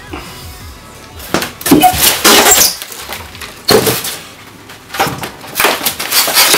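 Polystyrene foam packing and plastic wrap being pulled about in a cardboard box: loud bursts of crunching, crinkling and scraping, the longest starting about a second in, with shorter ones near the middle and end.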